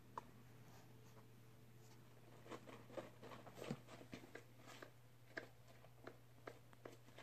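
Faint crackling and rustling from a pet hamster moving in paper bedding, small clicks bunched from about two and a half to five and a half seconds in, over a steady faint low hum.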